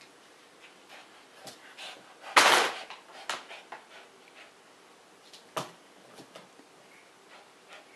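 A small dog and a cat play-fighting: scuffling and rustling, with one loud, noisy burst lasting about half a second around two and a half seconds in, and a couple of sharp short knocks after it.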